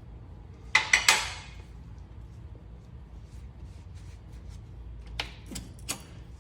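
Metal-on-metal clanks from hand tools on the tractor: three quick, loud, ringing clanks about a second in, then a few lighter clinks near the end.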